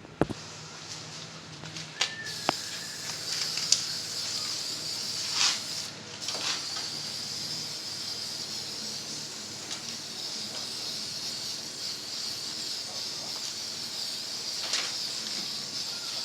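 Primer spraying from an aerosol can: a steady hiss that starts about two seconds in and carries on, with a few sharp clicks near the start.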